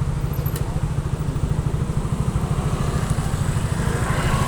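Vehicle engine running steadily with a rapid low throb.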